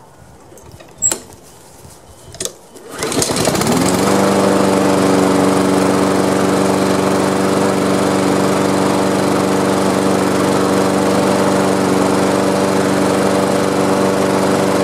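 Honda push-mower engine with a couple of sharp clicks, then catching about three seconds in, revving up and settling into a steady, even run with no surging: its pulsing is cured by a carburetor cleaning.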